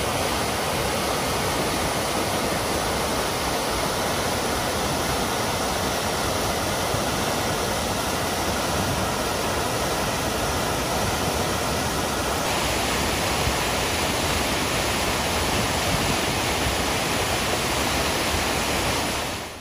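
Waterfall of a mountain river pouring through a narrow rock gorge: a steady, loud rush of falling water. Its hiss turns a little brighter about twelve seconds in.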